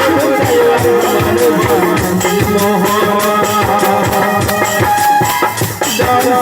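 Music: a song with a melody line over a steady drum beat.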